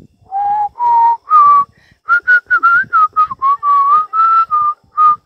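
A person whistling a tune through pursed lips. Three longer notes rise in pitch, then a quick string of short, choppy notes follows at a higher pitch.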